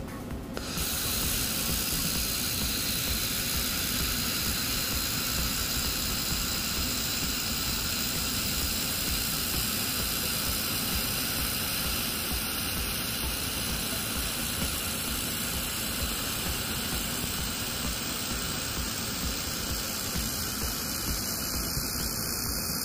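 Handheld laser welder running a bead with filler wire: a steady hiss that starts abruptly about a second in and holds level throughout.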